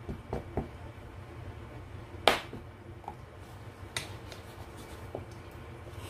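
Metal spoons stirring batter in a stainless steel mixing bowl: a few light clinks of spoon against bowl, the sharpest about two seconds in and another about four seconds in, over a low steady hum.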